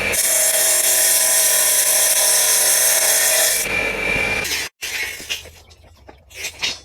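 A power tool running with a loud, steady high hiss for about four seconds, then stopping; after a sudden break come a few faint clinks and knocks.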